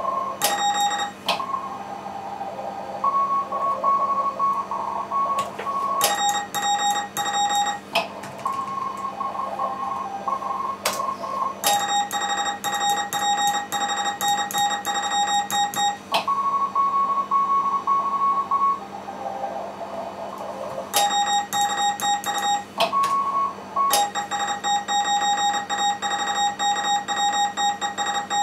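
Morse code on a ham radio in a CW contest: other stations' Morse from the receiver at a higher pitch trades turns several times with the operator's own keyed sending, which comes through as a louder, lower-pitched sidetone with clicks at each keying. A steady low hum runs underneath.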